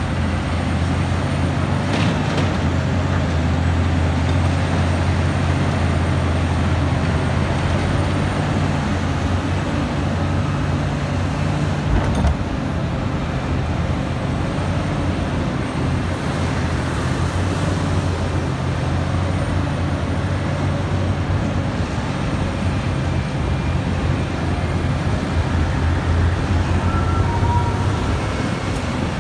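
Liebherr 984 mining excavator's diesel engine running steadily and hard through its dig-and-load cycle, with a deep, even drone. Two short sharp knocks, about two seconds in and again about twelve seconds in.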